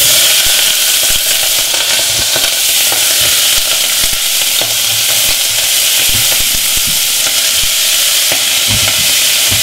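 Chopped garlic, onion and ginger sizzling loudly in hot peanut oil in a stainless steel pot. The sizzle starts suddenly as the first handful hits the oil and keeps on steadily while more is dropped in.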